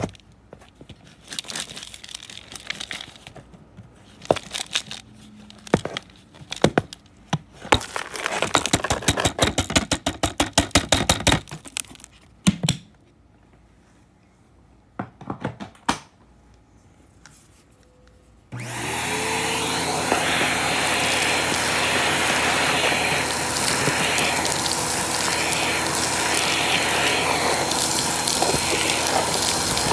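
Clicks, knocks and rattling of a vacuum cleaner's clear dust canister being handled and emptied, with debris spilling out. About 18 seconds in the vacuum cleaner switches on suddenly, its motor spinning up and then running steadily, with a wavering hiss as the hose sucks up debris.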